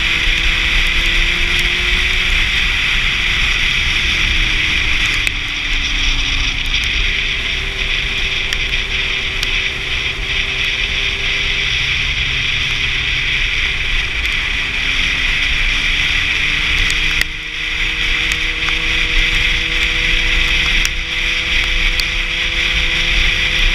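Sport motorcycle riding at speed, heavy wind rush over the engine note, which rises and falls with throttle and gear changes; the level drops briefly about 17 seconds in.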